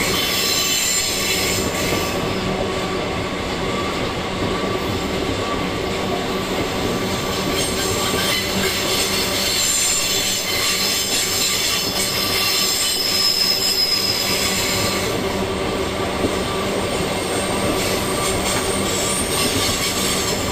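Iron ore freight train's steel gondola wagons rolling past on a curve: a steady rumble and clatter of wheels on the rails, with high wheel squeal coming and going over it.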